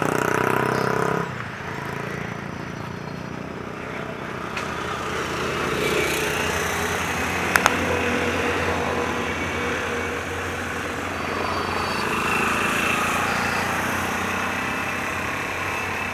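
Road traffic: vehicle engines running with a steady low hum, a heavy truck passing and swelling louder for a few seconds. Two sharp clicks about seven and a half seconds in.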